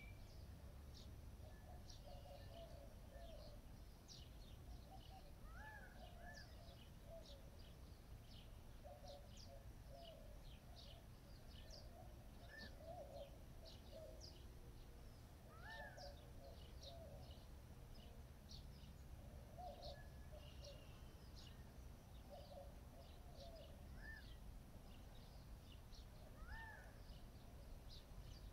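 Faint birdsong: many small birds chirping in quick, short high notes throughout, with a clearer hooked whistle every few seconds, over a steady low rumble.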